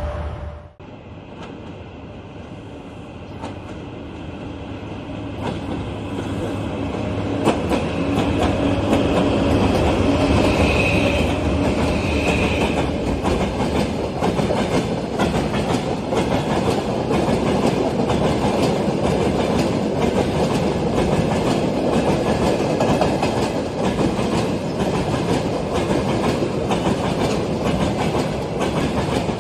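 Train wheels clattering over rail joints, a rumble with a dense clickety-clack that grows louder over the first several seconds and then runs on steadily.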